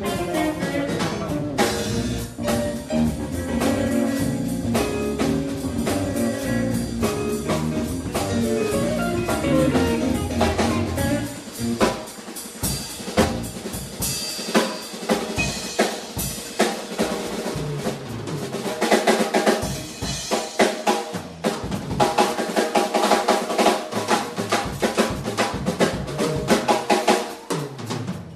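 Live band playing, electric guitars and bass over a drum kit. About eleven seconds in the low end drops out and the drums come to the fore, with guitar still playing above them.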